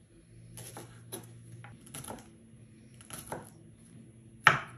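Knife slicing a spring onion on a wooden cutting board: irregular knocks of the blade against the board, with one louder knock near the end.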